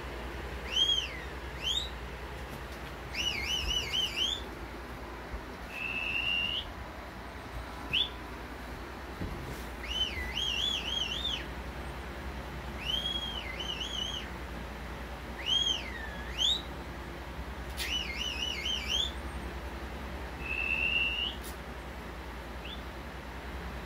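High whistle-like chirps and warbling, swooping calls played through a small portable Bluetooth speaker. They come about every second or two, some rising, some arching up and down, some wavering.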